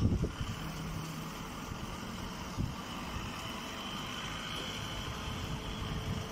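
Steady drone of running baling and shredding machinery, with a few low thumps near the start.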